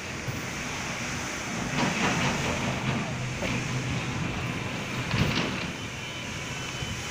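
Truck-loading belt conveyor running, its electric drive motor giving a steady hum over a noisy rush. Two louder stretches of noise come about two and five seconds in.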